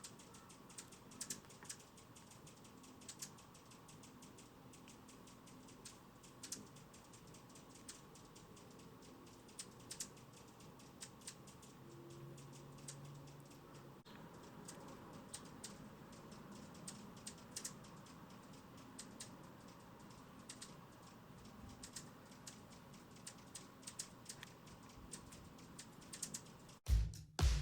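Hummingbirds giving short, sharp chip calls: irregular high ticks, several a second at times, over a faint background hush. Music with a beat cuts in near the end.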